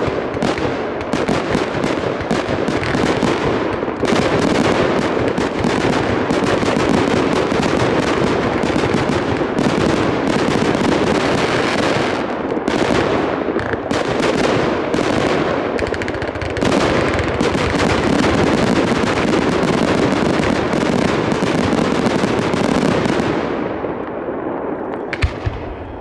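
Aerial fireworks bursting in rapid, overlapping bangs without a break, then thinning out and fading over the last few seconds, with one last sharp bang near the end.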